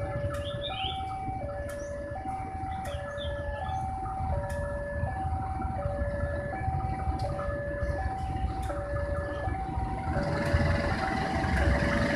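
Railway level-crossing warning alarm sounding an electronic two-tone signal: a higher and a lower tone alternating about every 0.7 s, warning that a train is coming. Under it runs a low rumble that grows louder near the end.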